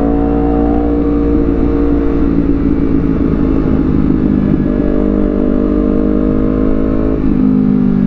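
Honda CBR250RR's parallel-twin engine through an aftermarket Villan Z2 carbon slip-on exhaust, riding at steady revs, then dropping in pitch as the throttle closes near the end.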